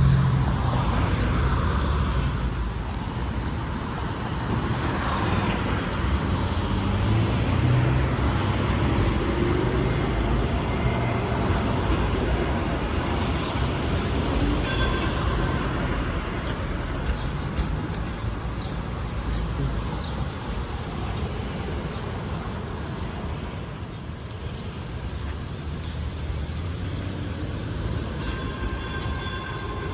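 TTC streetcar running on its rails: a steady low rumble and rolling noise, with a thin high tone held for several seconds in the middle.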